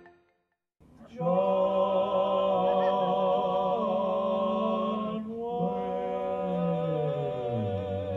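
A solo voice singing without accompaniment: a long held note with vibrato, then a second long note that slides down about an octave near the end.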